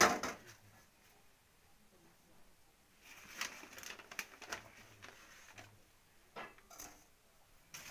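Stainless steel kadai and bowl knocking and scraping as roasted rice flour is tipped from one into the other. A sharp clatter comes at the start, then faint scrapes and a few light knocks.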